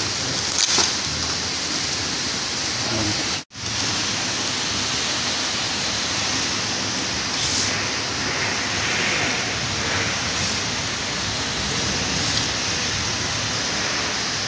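Steady hiss of even noise throughout, cut off for an instant by a sudden dropout about three and a half seconds in.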